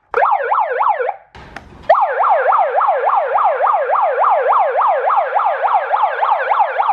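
Electronic toy siren sounding a fast yelp, its pitch sweeping up and down about five times a second. It sounds for about a second, cuts out briefly with a short burst of noise, then starts again and runs on steadily.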